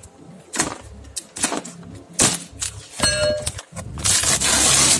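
Cardboard box being cut open with scissors: a few sharp clicks and snips, then a short metallic ring about three seconds in, then a loud tearing rasp for the last second or so.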